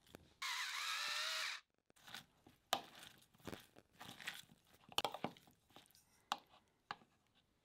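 Black pepper being ground over the salad: a loud whirring grind about a second long. Then crisp crunchy rustles and clicks as raw chopped cabbage and cherry tomatoes are tossed with the seasoning in a bowl.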